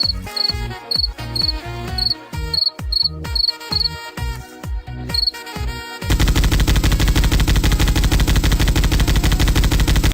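Sound-effect clips: a short musical beat with repeated high double chirps, then an abrupt switch about six seconds in to rapid, steady machine-gun fire.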